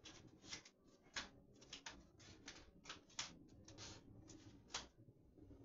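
Faint, irregular rustling and crinkling of a pleated blackout shade as hands press and smooth it against the window: a dozen or so short scratchy strokes.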